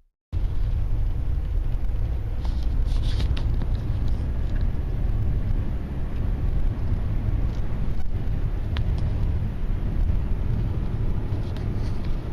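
Steady low rumbling noise with a few faint ticks and clicks scattered through it.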